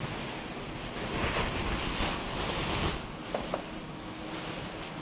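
Clear plastic cover of a wire-shelf mini greenhouse rustling and crinkling as it is handled and pushed aside, in several surges over the first three seconds. Two light clicks follow a little past halfway, then a faint steady hum.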